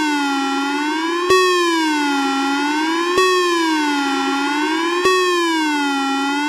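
A synthesized phone tone from Android 11 Go edition's built-in sounds: an electronic note whose pitch wavers slowly up and down like a siren, restarting with a click about every two seconds.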